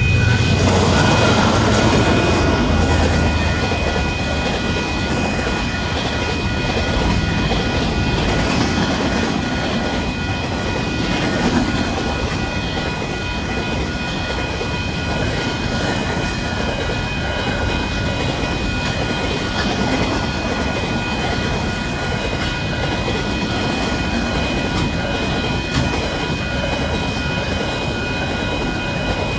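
KiwiRail DXC-class diesel-electric locomotives (GE U26C) pass with a heavy low engine rumble, loudest in the first few seconds. The long freight train's wagons then roll steadily past with wheel rumble and clatter over the rails. Steady high ringing tones run throughout, from the level crossing's warning bell.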